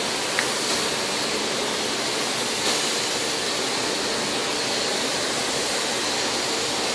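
Steady rushing hiss of moving air in a paint spray booth, even and unbroken, with most of its energy in the upper range.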